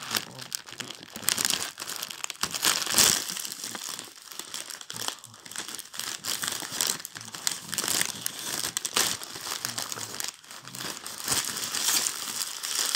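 Packaging crinkling and rustling with rapid irregular crackles as a boxed chocolate Easter egg is unwrapped, its box and wrapping handled and pulled open.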